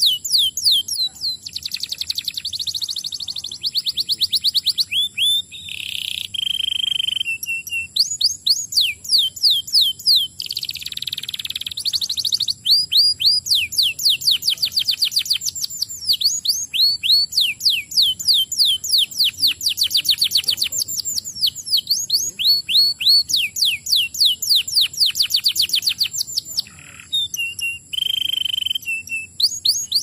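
Domestic canary singing a long, continuous song of fast trills, each made of rapidly repeated downward-sweeping notes, broken by a few held whistled notes about six seconds in and again near the end.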